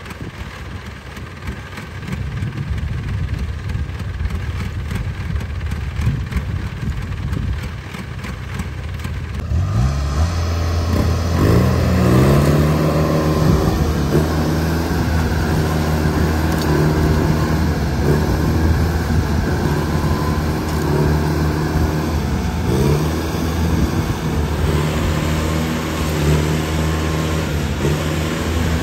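Diesel engine of a Kubota DC70 rice combine harvester. It runs as a low rumble at first, then revs up about a third of the way in and keeps running hard, its pitch dipping briefly several times.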